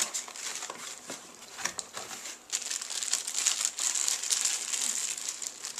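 Clear plastic bag holding telescope eyepieces crinkling as it is lifted out of a cardboard box and handled. Scattered rustles at first, then dense and continuous crinkling from about two and a half seconds in.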